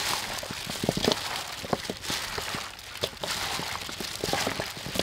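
Raw chicken feet being kneaded and rubbed together by hand in a bowl: wet squishing with irregular clicks and crackles as the feet knock against each other.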